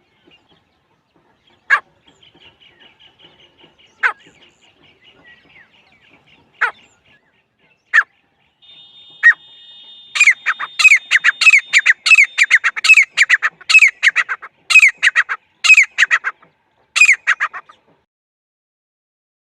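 Teetar (francolin) calls played as a hunting lure: single sharp calls a couple of seconds apart, then from about halfway a fast, loud run of repeated calls lasting around seven seconds. A faint high trill sits in the background early on.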